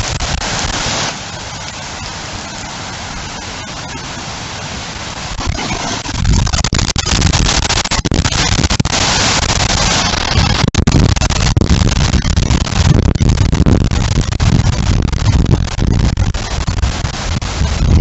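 Heavy rain and wind in a severe storm: a steady hiss of rain, then from about six seconds in strong, uneven gusts buffet the microphone with a loud low rumble.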